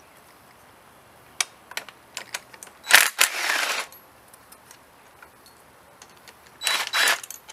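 Socket ratchet clicking in two quick runs, one about three seconds in and one near the end, with scattered metal ticks between, as the 10 mm throttle-body bolts and stud nuts are loosened.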